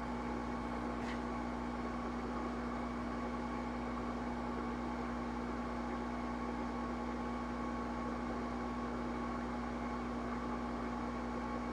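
A small electric fan running steadily, an even whir with a constant hum and a faint steady whine.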